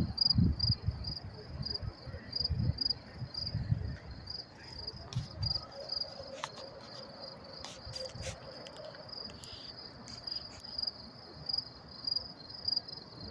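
Crickets chirping in a steady, evenly pulsed high trill, several chirps a second. Low thuds come and go through the first half, with a few faint clicks in the middle.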